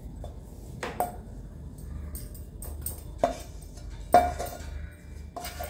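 A wooden spatula knocking and scraping against a steel pan as thick barfi dough is tipped out into a metal tray, each knock followed by a brief metallic ring. There are four or five knocks, the loudest about four seconds in.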